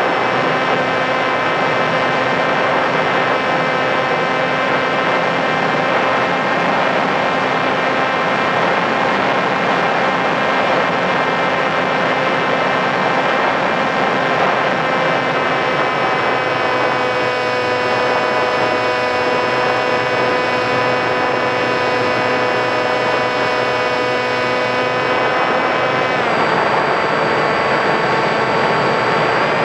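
Onboard sound of a Sky Surfer RC glider in flight: its electric motor and propeller whining steadily over rushing wind noise. The whine's pitch steps down about halfway through, comes back up, then drops again near the end as the throttle changes.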